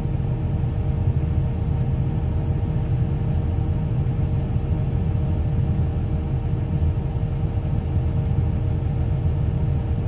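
Excavator's diesel engine idling steadily, heard from inside the operator's cab: an even low rumble with a constant hum above it.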